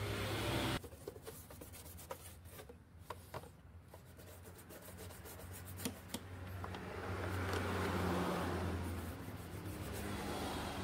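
A small paintbrush rubbing and dabbing dye onto a scooter's textured plastic body panel, with scattered light clicks. A low steady hum swells in the background in the second half.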